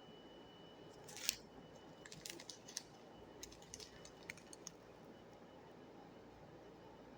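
Quiet room with a short scrape about a second in, then a scattering of light clicks and taps for a few seconds: small objects being handled close by.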